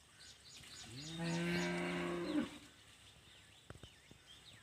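A cow mooing once: a single low, steady call about a second and a half long that rises in pitch as it starts. Faint high bird chirps come just before it.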